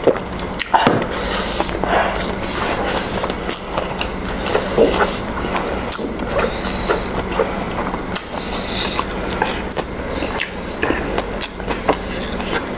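Close-miked eating: noodles slurped and chewed, with a string of short wet clicks and smacks from mouths and chopsticks, over a steady low hum.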